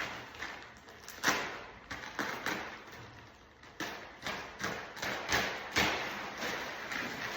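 Irregular knocks, taps and clatter from hands and tools handling parts during a microwave installation, a dozen or so sharp hits with some scraping between them.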